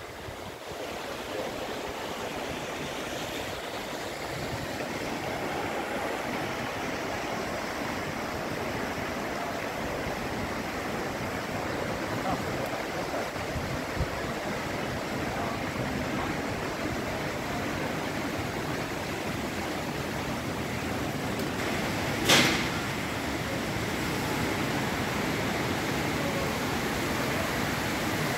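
Steady rush of splashing water from an ornamental lake's fountain and cascades, growing a little louder. A single sharp knock about 22 seconds in is the loudest sound.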